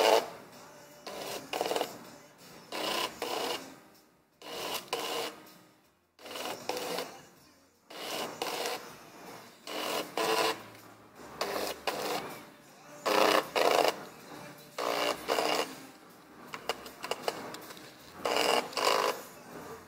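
Canon X-710 colour pen plotter printer drawing straight lines: its stepper motors drive the pen carriage and paper roller in repeated short bursts of whirring and buzzing, with brief pauses between strokes.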